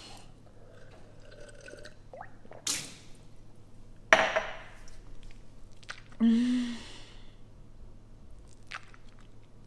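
A person drinking water with two loud swallows, about 2.7 and 4 seconds in, then a short voiced sigh about six seconds in. She is easing a mouth burning from very spicy noodles.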